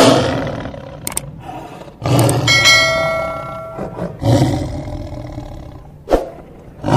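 Lions growling and snarling in several short, loud outbursts about two seconds apart. A bell chime rings for about a second, starting about two and a half seconds in, and a short click comes a little before it.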